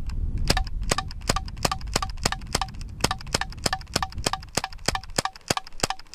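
A CO2 BB pistol fired in rapid semi-automatic shots, about three sharp cracks a second in a steady string.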